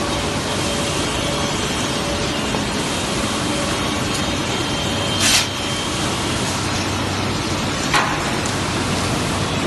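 Woodworking machinery running with a steady, loud noise, a four-side moulder with a rip saw among it. A sharp knock comes about five seconds in and a smaller one near eight seconds.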